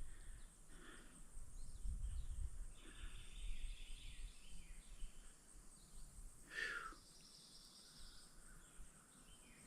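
Quiet woodland ambience: faint bird calls and chirps scattered through, the clearest a short falling call about six and a half seconds in, over a soft low background hiss.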